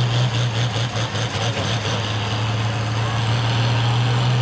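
John Deere farm tractor's diesel engine running hard under load while it pulls the sled, a loud steady drone held at an even pitch, with a thin high whine above it.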